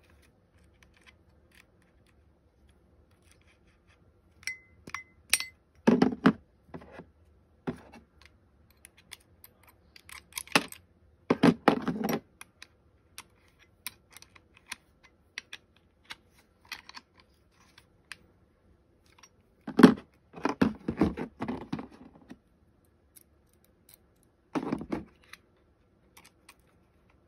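Metal clicking, clinking and rattling as the blade-pivot nut of a cordless electric pruning shear is tightened by hand and with small tools. The sounds come in several short clusters with quiet gaps between.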